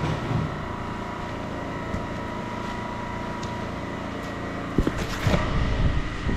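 A steady mechanical drone with a faint high whine runs throughout. A plastic sack rustles briefly at the start as it is tied. About five seconds in come a cluster of knocks and rumbles from the camera being handled and picked up.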